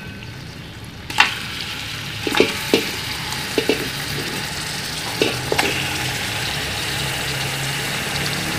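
Raw mutton pieces going into hot desi ghee in a large steel pot: a steady sizzle sets in about a second in, with several knocks as pieces land in the pot during the first six seconds.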